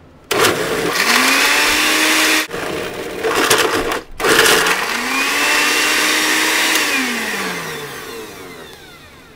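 Household blender motor chewing through whole toilet paper rolls. It starts with a rising whine, cuts out briefly twice, runs again, then winds down with a falling whine near the end.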